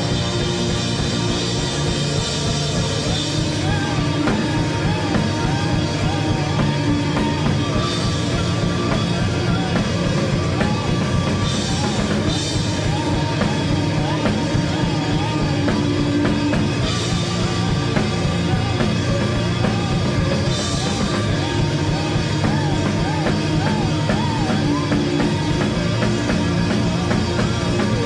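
Rock band playing live: drum kit with cymbal crashes every few seconds under dense guitar-band music, with a wavering melodic line running over it.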